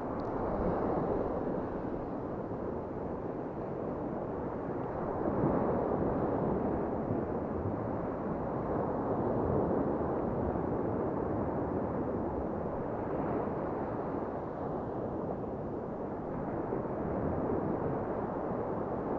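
Sea waves washing onto the shore in a steady rush that swells and eases every few seconds, with wind buffeting the microphone.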